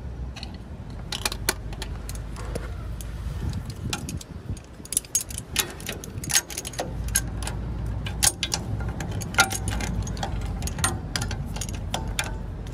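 Pliers and metal suspension hardware clinking together while gripping a sway bar end link: a run of irregular sharp metallic clicks and rattles over a steady low rumble.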